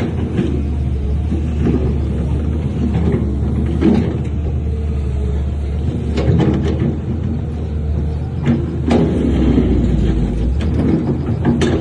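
Heavy diesel earthmoving machinery running steadily under load, with a few sharp metallic clanks about six, nine and eleven and a half seconds in.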